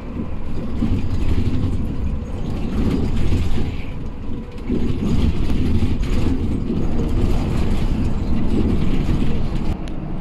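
Inside a moving coach bus: a steady engine and road rumble with rattling and creaking from the cabin, dipping briefly about halfway through.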